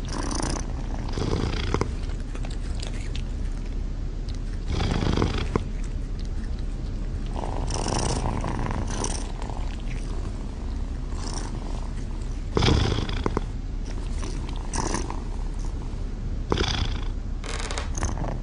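Two domestic cats vocalising in short bursts a few seconds apart, trading calls back and forth like a conversation, over a steady low purr.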